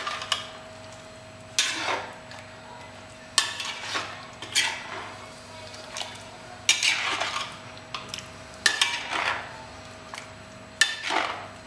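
A perforated metal ladle stirs thick chicken curry in a metal kadai, scraping and clinking against the pan in about seven short bursts, one every second or two.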